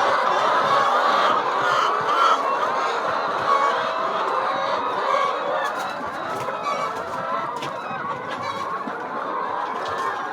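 A flock of chickens clucking and calling, many birds at once in a continuous chatter that eases off a little in the second half.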